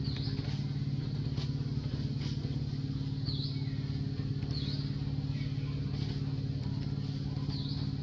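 A motor vehicle's engine idling steadily, a constant low hum that does not change speed. Short high chirps break in about four times, a few seconds apart.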